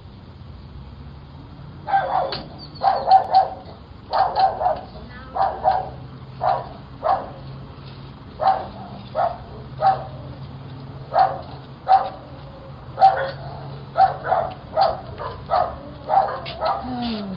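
A dog barking repeatedly in quick, uneven runs of barks, starting about two seconds in. It is heard through a video doorbell's microphone, which sounds thin and cut off at the top.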